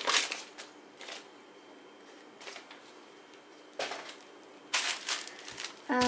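Paper and plastic rustling in about five short separate bursts, from a folded paper leaflet being handled and set down and a plastic-wrapped rolled canvas tube being gripped.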